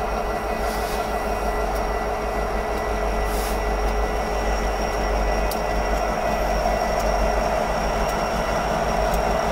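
Union Pacific diesel locomotives of a rotary snowplow train running. It is a steady engine drone with a few high, steady tones, slowly getting louder.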